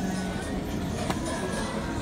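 Music playing amid crowd chatter, with a brief click about halfway through.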